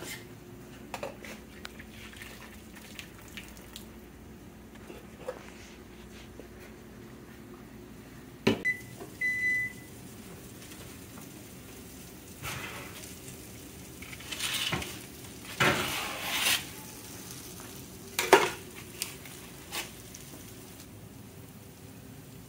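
Kitchen clatter of a metal pot and lid, then an oven door opening and a foil-lined baking sheet being pulled out and worked with a metal spatula, with knocks, scraping and foil rustling; the loudest clank comes about 18 seconds in. About 9 seconds in, a short high electronic beep sounds twice.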